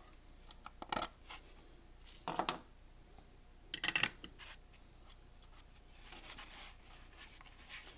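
Small hand tools being handled at a workbench: short scraping and snipping sounds, the strongest three about a second, two and a quarter seconds and four seconds in, with lighter scratching between.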